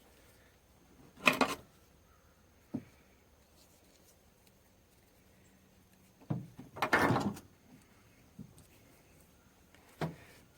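Short handling noises of parts being moved by hand: a brief clatter about a second in, a light knock, a longer, louder rattle around the middle, and a click near the end.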